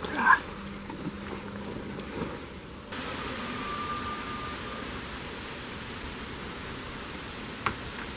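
Steady outdoor background hiss, with a short loud sound just after the start and one sharp click near the end.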